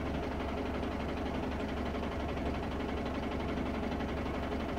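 Pickup truck engine running steadily at low speed, a constant low hum with no changes.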